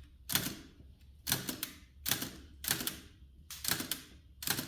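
Hammond Multiplex typewriter being typed slowly, six keystrokes about a second apart. Each one is a sharp clack as the small hammer behind the carriage strikes the paper and ribbon against the type wheel.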